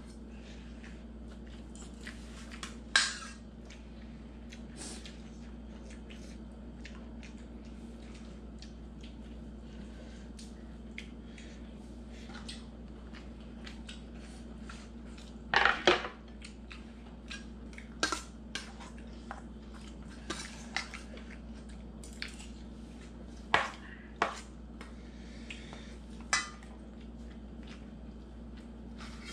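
Scattered clinks and knocks of metal spoons and ceramic bowls on a wooden table, a dozen or so, the loudest about halfway through, over a steady low hum.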